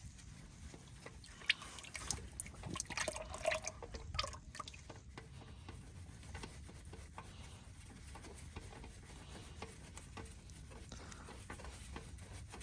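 Small clicks and knocks of a filter wrench working a stuck oil filter loose, busiest in the first few seconds, with oil dripping into the drain pan.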